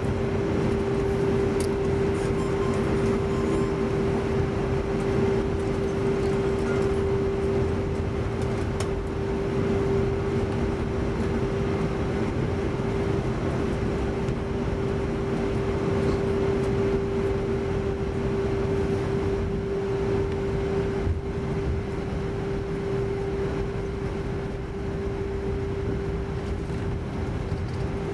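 Steady cabin noise inside an Airbus A320 taxiing at low power, with a constant hum running through it.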